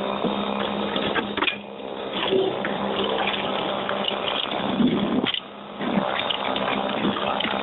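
EGO 21-inch cordless single-stage snowblower running under load, a steady motor hum under the rushing sound of its auger churning and throwing fluffy powder snow. The rush dips briefly twice.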